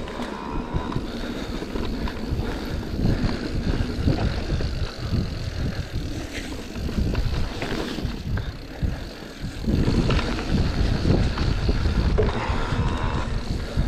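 Electric full-suspension mountain bike riding a forest dirt singletrack: knobby tyres rolling over dirt and leaves and the bike rattling and jolting over bumps, getting rougher and louder from about ten seconds in.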